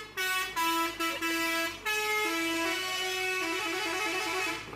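Toy cement mixer truck's electronic horn playing a short tune: a run of held, buzzy horn-like notes stepping up and down in pitch, stopping just before the end.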